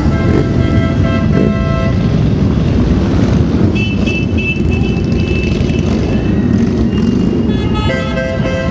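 A procession of cruiser and touring motorcycles riding slowly past, their engines a steady deep rumble, with horns honking in stretches near the start, around the middle and near the end.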